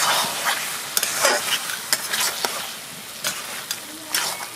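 Mutton pieces with turmeric frying in a metal kadai while a spatula stirs them: a steady sizzle with repeated short scrapes of the spatula against the pan.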